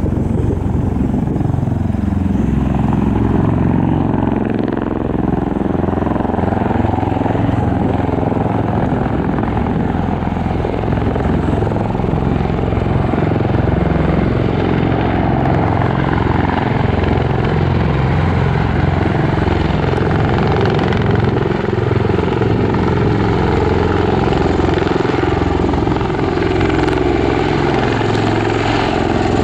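Bell Boeing MV-22B Osprey tiltrotor flying overhead in helicopter mode, nacelles tilted up for landing: a deep beat from its two large proprotors over the hum of its two turboshaft engines, steady and loud.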